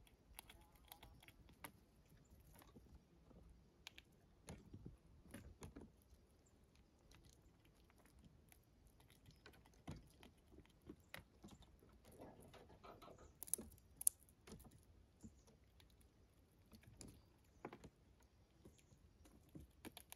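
Faint, irregular clicking and crunching of a gray squirrel chewing dried corn kernels and shifting them on wooden boards, with two sharper clicks about two-thirds of the way through.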